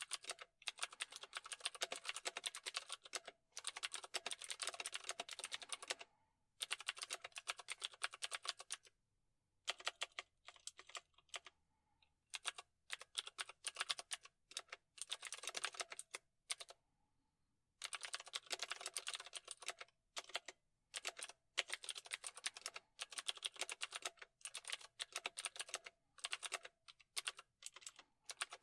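Rapid typing on a computer keyboard: fast runs of key clicks broken by short pauses, with a sparser, slower stretch about a third of the way in.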